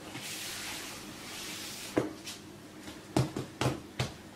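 Gloved hands rubbing over floured croissant dough with a soft brushing hiss, then dull thumps as the palms pat and press the dough flat: one about two seconds in and a quick run of four or five near the end.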